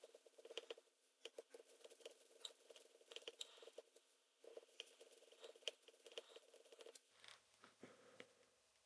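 Faint clicks and scrapes of a flat-blade screwdriver working small slotted screws on a metal clipper head plate, irregular and quick for about seven seconds, then only a few faint ticks.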